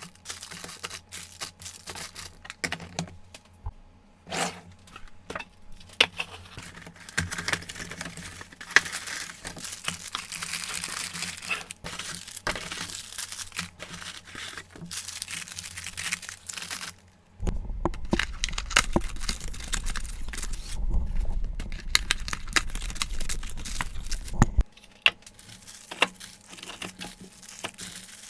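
Food packaging being handled during a fridge and pantry restock: plastic crinkling and tearing, with many sharp clicks and knocks of containers and lids. A louder stretch of several seconds after the middle carries a low rumble under the crackle.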